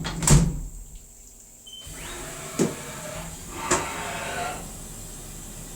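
Haas CNC milling machine working: a sharp knock just after the start, a short lull, then a steady mechanical hum with two sharp clicks about a second apart.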